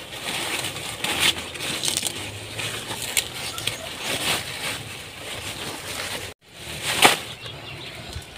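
Pumpkin leaves rustling and their stems snapping as they are picked by hand: a run of crackles and sharp snaps. The sound drops out briefly about six seconds in, then comes a single loud crunch.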